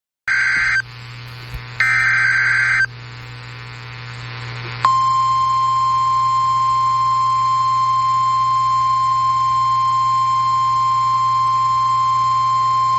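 NOAA Weather Radio emergency alert: two short buzzy bursts of SAME digital header data, then about five seconds in the steady single-pitch 1050 Hz warning alarm tone starts and holds. Over a low hum and hiss, it signals that a severe thunderstorm warning is being broadcast.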